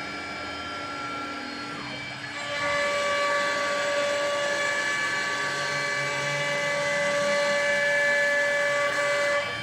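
CNC router spindle whining steadily. About two and a half seconds in it gets louder with a stronger, higher whine as the bit cuts into the workpiece, then drops back just before the end.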